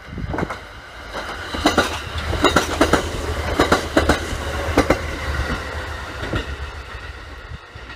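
Kintetsu electric commuter train passing close by, a low rumble with its wheels clacking in quick pairs over the rail joints, loudest in the middle and fading near the end.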